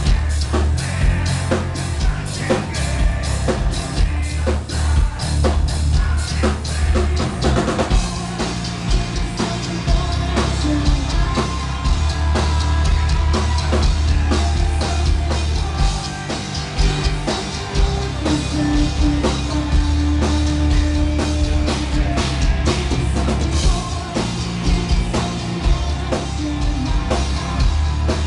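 Gothic metal band playing live at full volume: a drum kit hit hard and fast with heavy kick drum, bass and guitars, and a vocal line over the top.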